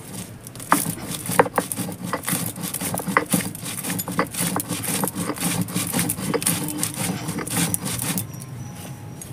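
Stone roller grinding dry-roasted whole spices on a grooved stone slab (shil-nora): a grating scrape broken by many sharp cracks as the hard spice pieces are crushed, stopping near the end.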